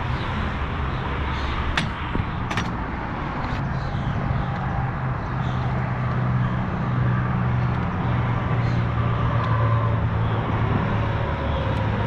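Engine running steadily, a low wavering hum under a haze of outdoor noise, with two sharp clicks about two seconds in.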